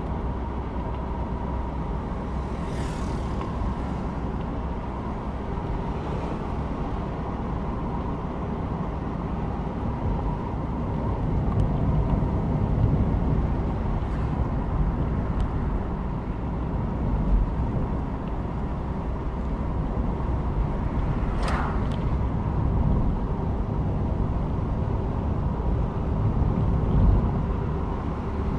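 A car driving: steady low road and engine rumble that grows somewhat louder about a third of the way in, with a faint steady whine. A few brief high-pitched sounds cut through it.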